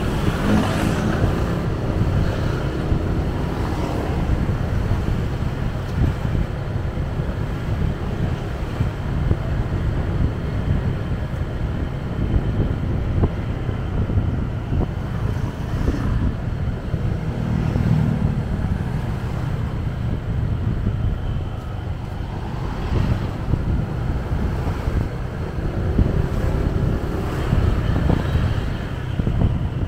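Motorcycle riding in town traffic: a steady low wind rumble on the microphone mixed with engine sound from the bike and nearby vehicles, swelling in pitch a few times.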